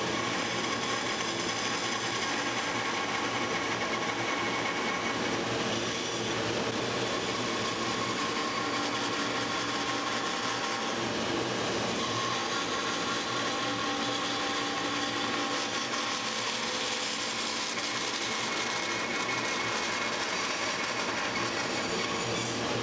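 Bandsaw running steadily as its blade cuts through a dry apple-wood blank.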